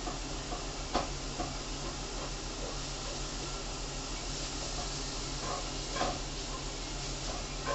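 Creality Ender 3 3D printer running a print: a steady whir and hiss of its fans over a low hum, with short faint chirps from the motors as the print head moves. Two sharper clicks come about one second in and near six seconds.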